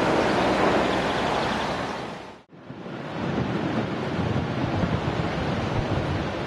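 Steady roar of the Boeing 787-9's jet engines fading out about two and a half seconds in, followed by gusty wind buffeting the microphone.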